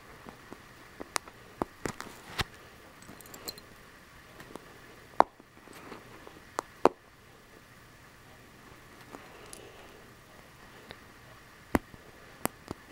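Lego minifigure pieces being pulled apart and handled by hand: scattered sharp plastic clicks and snaps, the two loudest about five and seven seconds in.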